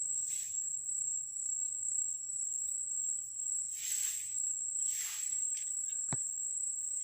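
Insects, such as crickets, keeping up a steady high-pitched drone, with a few brief hissy swells and a single sharp click about six seconds in.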